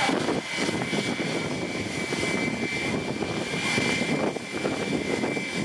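Airbus A320 jet engines running, a steady high whine over a dense, fluttering rumble.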